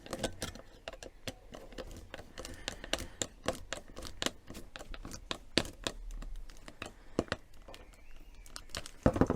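Hands working a flexible extraction hose onto a 3D printed coupler: irregular clicks, taps and crinkling as the hose and its clip are handled.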